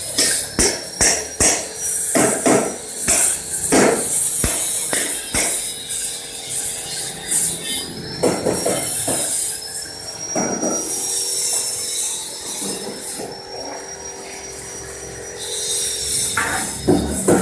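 Angle grinder working steel, its high whine wavering in pitch over a steady hiss. Sharp metal knocks come about twice a second for the first five seconds, then a few more spaced out later.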